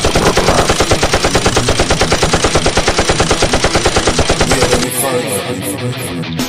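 Machine-gun fire sound effect: a rapid, even stream of shots that cuts off about five seconds in, giving way to music.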